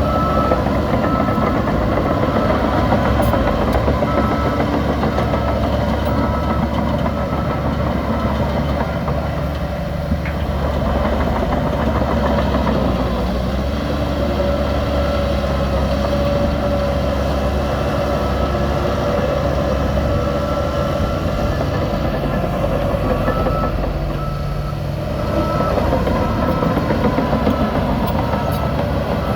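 Heavy diesel machinery running steadily, the engines of a bulldozer and a large truck at work. A reversing alarm beeps in an even on-off pattern at the start and again through the last several seconds.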